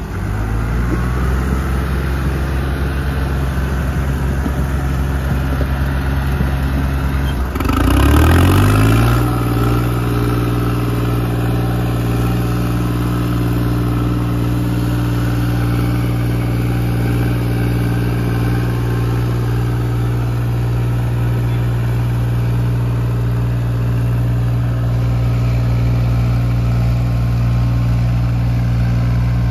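New Holland 3630 tractor's diesel engine running steadily at low speed, then revving up quickly about eight seconds in and holding at a higher, steady speed.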